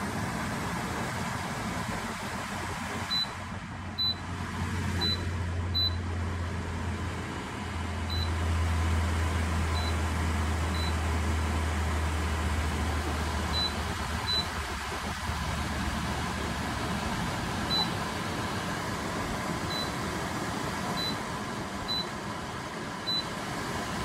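Domserv portable evaporative air cooler running with a steady fan rush while its touch control panel gives short, high beeps, about fourteen at irregular intervals, as buttons are pressed. A low hum comes in about three seconds in and fades out about two-thirds of the way through.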